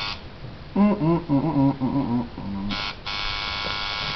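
Electric tattoo machine buzzing cuts off at the start. A loud, short run of pitched, stepping tones follows for about a second and a half. The machine then buzzes briefly and starts running steadily again about three seconds in.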